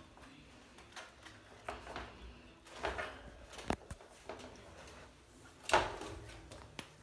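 Puppies scrabbling in a wire dog crate while one clambers over its edge, giving scattered scrapes and knocks on the plastic crate pan and wire, the loudest about six seconds in.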